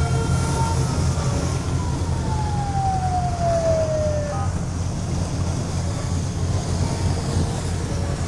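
A siren wailing, its pitch falling slowly in one long glide that stops about four seconds in, over a steady low rumble of boat engine and wind on the microphone.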